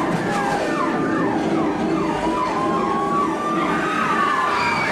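Emergency-vehicle sirens played as part of an earthquake ride's effects, over a steady rumble. At first the pitch sweeps down again and again, several times a second; about halfway through a slower rising wail takes over.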